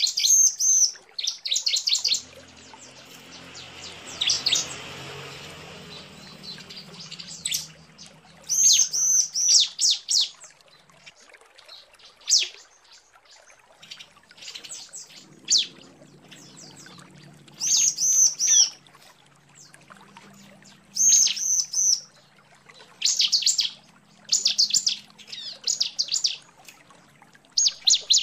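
Female bar-winged prinia (ciblek) calling to draw a male: groups of fast, high chirps, repeated every one to three seconds with short pauses between, ending in a rapid run of chirps.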